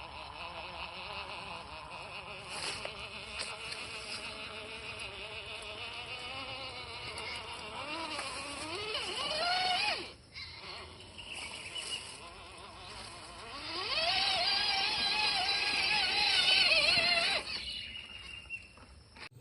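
Electric motor whine of an MN99S RC crawler, rising in pitch as it is throttled up about eight seconds in, dropping away briefly, then rising again and holding at its loudest for several seconds before cutting off suddenly near the end.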